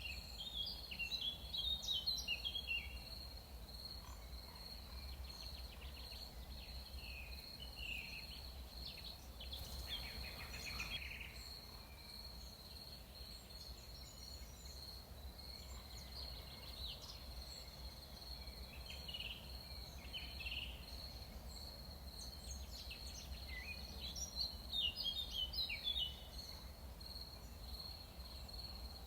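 Forest ambience: insects trill steadily on one high pitch, while birds call in short chirping bursts, busiest near the start and again near the end, over a faint low rumble.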